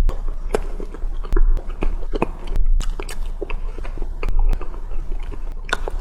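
Close-miked chewing and biting of a pork floss bun: irregular wet mouth clicks and smacks, several a second, over a steady low hum.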